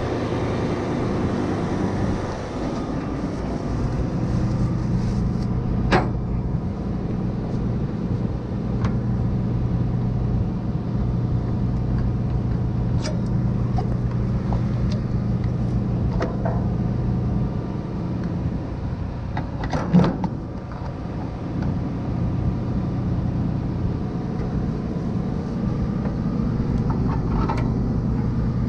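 CLAAS Lexion 770 combine harvester running steadily, a constant low engine and machinery drone, with two short knocks, one about six seconds in and another about twenty seconds in.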